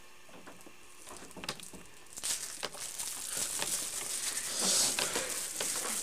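Rustling and scattered clicks of something small being handled, growing busier about two seconds in.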